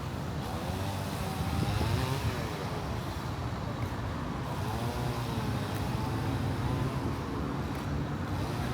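Road traffic: a steady low rumble of engines, with engine tones rising and falling as vehicles pass.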